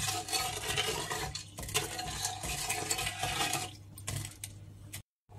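Metal spoon stirring and scraping around a stainless steel pot of salted spice brine, with rapid clinks against the pan's sides and bottom. The stirring stops about four seconds in.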